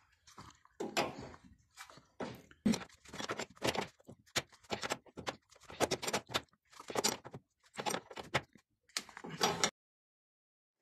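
Gloved hands handling a washing machine's sheet-metal base frame and removing one of its threaded feet: irregular scrapes, rattles and knocks of metal and plastic that stop about a second before the end.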